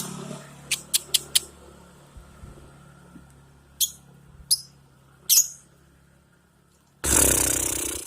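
Female lovebird giving short, sharp, high chirps, a quick run of four and then three more spaced out, followed near the end by a loud, harsh burst of about a second.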